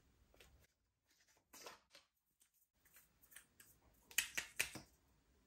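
Short, sharp clicks and crackles in an irregular series from small objects being handled up close, with the loudest in a quick cluster about four seconds in.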